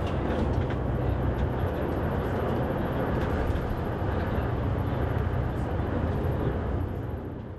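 Steady engine drone and road noise heard from inside a moving coach, fading out near the end.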